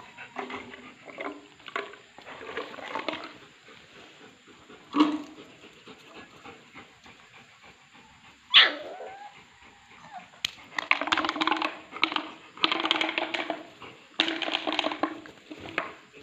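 Belgian shepherd puppies vocalising as they play-fight: short yips and whimpers, a sharp single yelp about five seconds in and a louder one at about eight and a half seconds, then a dense run of rapid yaps through the last five seconds.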